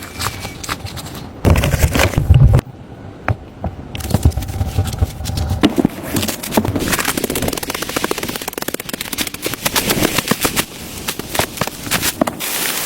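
A fast, irregular run of sharp cracks and knocks, with a louder, deeper burst of noise about two seconds in.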